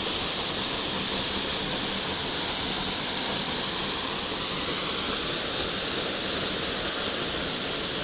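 Waterfall pouring down a rock face and splashing into a pool below: a steady, even rush of falling water.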